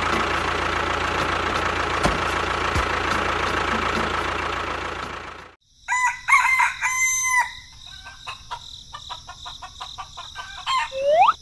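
A loud, steady mechanical noise, like an engine or motor running, cuts off abruptly about five and a half seconds in. A rooster then crows over a steady high trill of crickets, and another rising call comes near the end.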